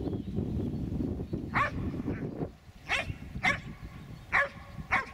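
Karelian bear dog barking at wild boar during boar training: five short, sharp barks, two of them close together, over a low rumbling noise in the first half.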